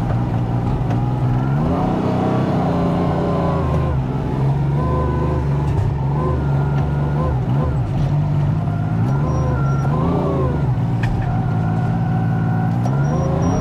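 Kubota R430 compact wheel loader's diesel engine running under way, its pitch rising and falling several times as the revs change, heard from inside the cab.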